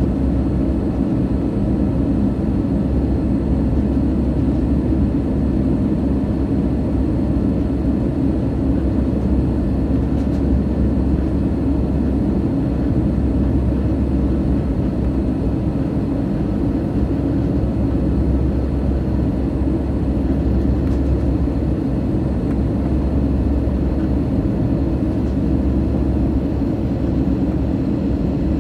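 Airbus A320 cabin noise on final approach, heard from inside the cabin near the front: a steady rumble of airflow and jet engines with a faint steady whine above it.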